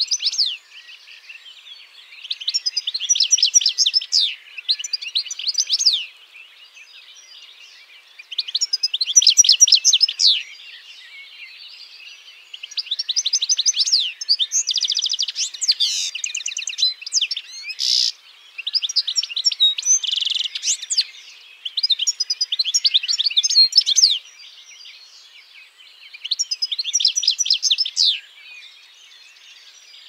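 European goldfinch singing: phrases of rapid, high, twittering notes one to two seconds long, repeated every few seconds with short pauses between.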